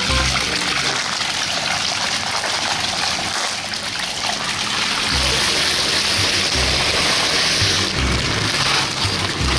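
Water bubbling and splashing in an aerated koi quarantine tub, a steady hiss that gets louder about halfway through.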